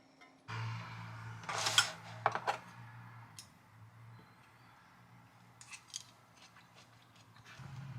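A steady low hum sets in about half a second in. Over it come sharp metallic clicks and snips, loudest in a quick cluster of several a little after a second in, then a few lighter clicks later, like kitchen utensils being handled.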